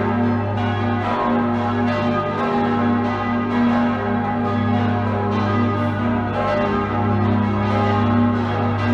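Large swinging church bells ringing in a peal, strikes overlapping over a deep, sustained tone from the great bell.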